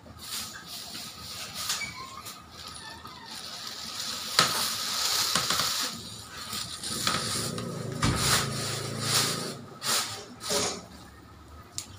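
Thin plastic carrier bags rustling and crinkling in irregular bursts as vegetables are handled in them.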